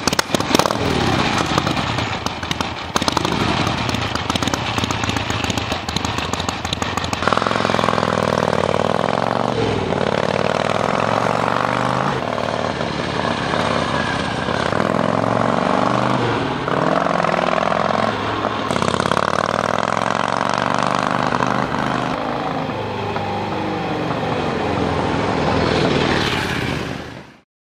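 1976 Harley-Davidson XLH Ironhead Sportster's V-twin engine running and revving, then accelerating through the gears, its pitch climbing and dropping back at each shift, several times over. It dies away just before the end.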